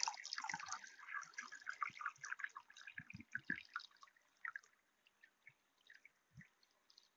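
Water poured from a plastic jug splashing into a plastic flower pot that is filling up. The splashing fades after about four seconds to scattered drips.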